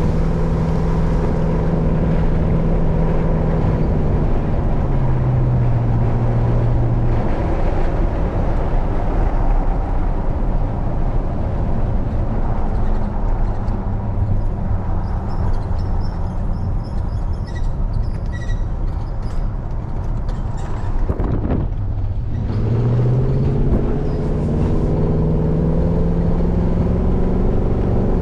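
A full-size truck being driven on a paved road, heard from inside the cab: steady engine hum and tyre noise. About three-quarters of the way through the engine note drops, then climbs again as the truck picks up speed.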